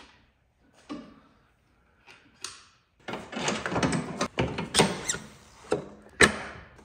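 Metal parts clinking and scraping as a spacer and axle nut are fitted onto a motorcycle's rear wheel axle. Two faint knocks come first, then from about three seconds in a dense run of clicks and scrapes with a few sharp clinks near the end.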